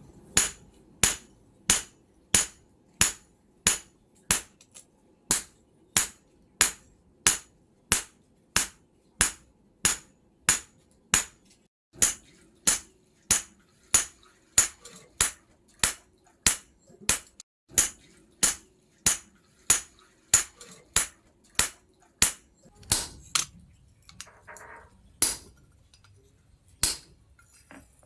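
Hand hammer striking steel on an anvil in a steady rhythm of about two blows a second, each a sharp ringing clang; the blows slow and space out near the end.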